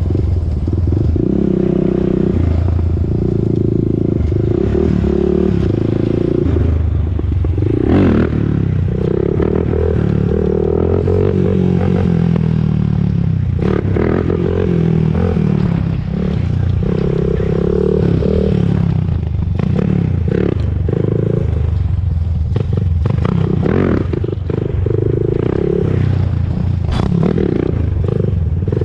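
Honda TRX400EX ATV's single-cylinder four-stroke engine running under riding load, revving up and falling back again and again, with scattered clicks and rattles.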